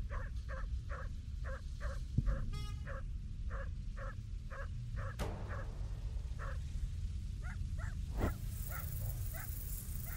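A dog barking over and over, about three barks a second with short pauses, over a low steady rumble. A thud comes about two seconds in and a sharp knock near the end.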